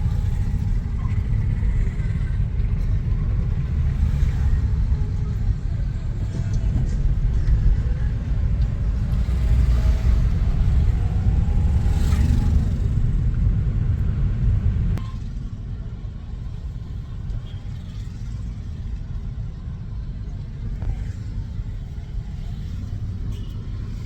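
A car running, a steady low rumble that drops noticeably in level about two-thirds of the way through.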